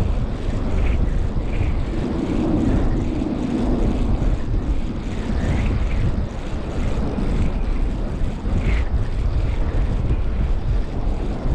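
Strong wind buffeting the microphone, mixed with the rumble of traffic on the nearby freeway, one vehicle hum swelling about two seconds in.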